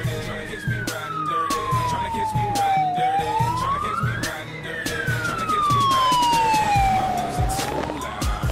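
Fire engine siren wailing as the truck approaches and passes, a quick rise and a long slow fall, repeating about every four and a half seconds. It is loudest a little before the end as the truck goes by. Hip-hop music with a steady beat plays underneath.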